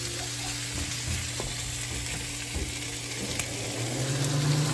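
Breaded chicken tenders frying in oil in a pan on a gas burner: a steady sizzle. A low hum underneath grows louder near the end.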